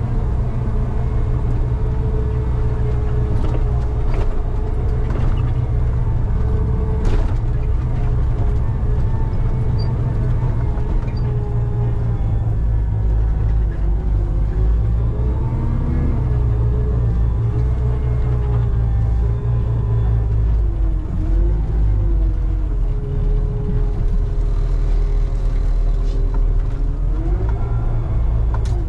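Concrete mixer truck's diesel engine heard from inside the cab, running with a steady low rumble as the truck rolls slowly, its pitch wavering a little now and then. A couple of sharp clicks in the first several seconds.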